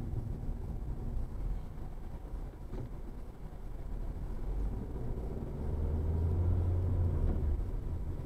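Road and engine noise inside a car cabin at highway speed: a steady low rumble that swells with a low drone for a couple of seconds past the middle.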